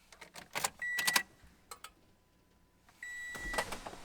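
Keys jangling and clicking inside a car, with the car's high warning chime sounding twice, briefly and then for just under a second.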